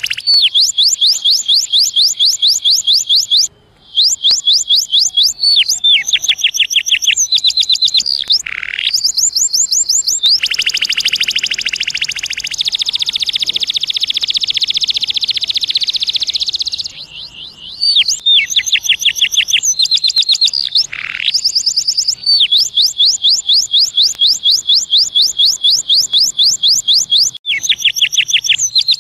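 Male domestic canary singing: a string of fast trills, each a quick run of repeated high notes, with one long unbroken rolling trill through the middle.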